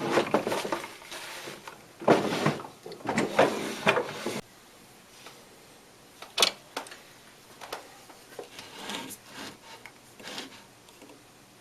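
Clattering and scraping of tools and parts being handled at a jeweller's bench, busiest for the first four seconds or so, then a few lighter separate clicks and taps as stone setting begins.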